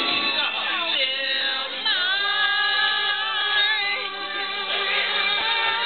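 Women singing along together at karaoke, several voices at once over the backing music.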